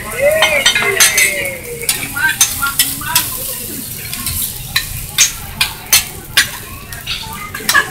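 Fried rice sizzling on a steel teppanyaki griddle while a metal spatula scrapes and strikes the griddle surface, giving sharp, irregular clacks roughly twice a second.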